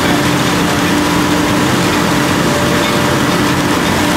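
Loud, steady drone of a menhaden purse-seine boat's machinery, its engines and fish-pumping gear, with a steady low hum underneath.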